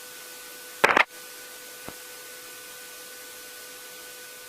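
Steady hiss of a cockpit intercom and radio audio feed, with a faint steady hum tone under it. It is broken by one brief loud crackle about a second in and a faint click a second later.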